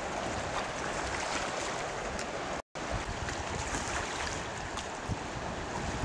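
Wind buffeting the microphone over waves washing against a rocky sea shore, a steady noise broken by a brief dropout about two and a half seconds in.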